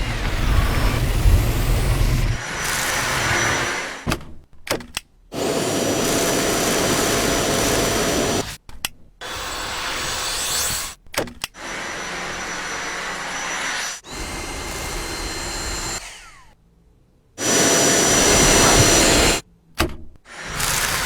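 Cordless stick vacuum cleaners running in a string of short clips, each a steady whir with a faint high whine. The clips are cut off abruptly, with short silent gaps between them.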